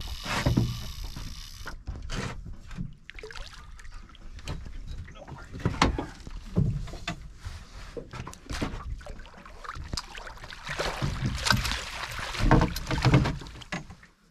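Water splashing and sloshing beside a small open fishing boat as a hooked fish is brought into a landing net, with irregular knocks and clicks of gear against the hull. The splashing is heaviest and loudest near the end.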